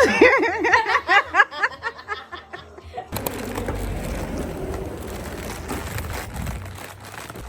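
A child giggling: a quick run of high laughs for about three seconds, then it cuts off abruptly and gives way to a steady noisy background hum.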